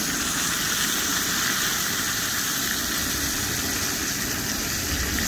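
Ribeye steak sizzling steadily in foaming butter in a frying pan over a butane camp stove.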